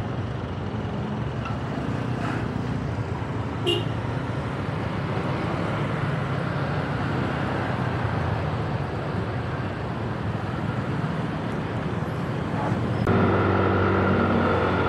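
Steady motor-vehicle noise, a rumble with a low hum. There is a brief click about four seconds in. About thirteen seconds in it gets louder and a higher steady whine joins.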